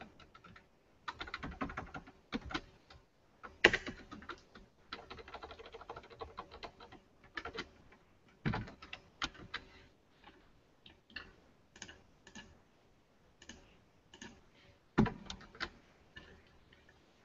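Typing on a computer keyboard: runs of quick keystrokes with short pauses between them, thinning to scattered single key clicks in the second half. A sharper clack comes about 4 seconds in and another about 15 seconds in.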